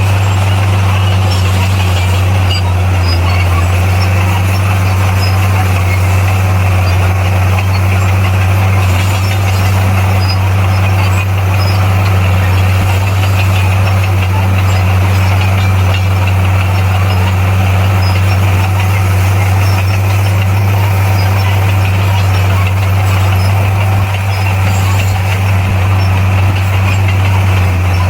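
Bulldozer's diesel engine running steadily under load, a loud constant low drone with no change in pitch.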